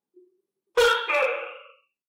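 Tokay gecko giving one loud two-part 'to-kay' call about three-quarters of a second in, the second note following about a third of a second after the first, then fading.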